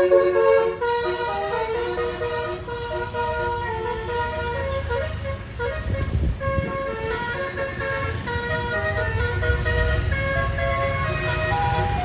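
A bus's basuri horn, a set of tuned air horns, playing a 'telolet' melody of quickly changing notes. A low rumble underneath swells about halfway through and again near the end.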